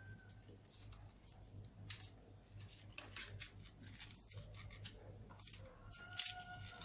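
A small knife trimming and peeling green onion stalks held in the hand: faint, scattered little cuts and scrapes over a low steady hum.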